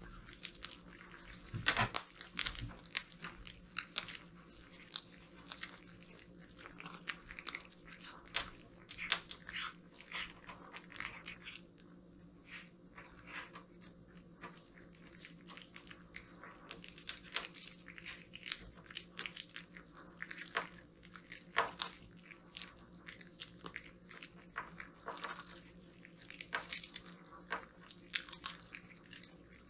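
Several cats chewing and crunching a grilled fish with its bones, a dense run of irregular close-up crunches and smacks.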